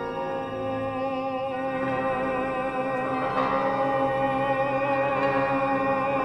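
Large ensemble playing contemporary orchestral music: long held notes layered into a sustained chord, some with a slight vibrato, slowly getting louder.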